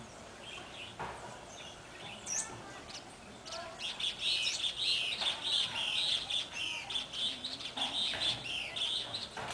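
A songbird singing: a few scattered chirps at first, then from about four seconds in a rapid, continuous warbling song of high chirps that runs until just before the end.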